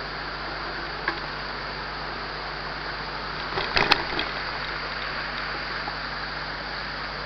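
Steady rushing noise of a mountain bike being ridden, wind and tyre noise on the camera, with a sharp click about a second in and a short cluster of knocks and rattles near the middle.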